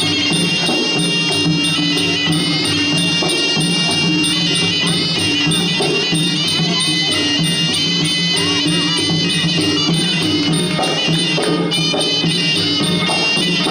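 Traditional ringside fight music: a shrill reed oboe (sralai) plays a continuous wavering melody over steady drumming.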